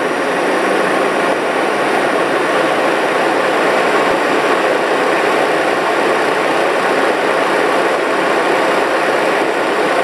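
Electric radiator cooling fan of a 1984 Corvette running, a loud, even rush of air, as the motor settles to full speed after starting up. Its current draw drops from about 16 to 10 amps.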